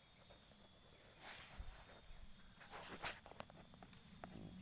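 Footsteps rustling and crunching through dry, dead grass: two brushing rustles, the second ending in a sharp snap about three seconds in, followed by a few small ticks. A steady high chirring of insects runs underneath.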